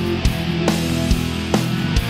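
Background rock music with guitar and a steady drum beat, about two hits a second.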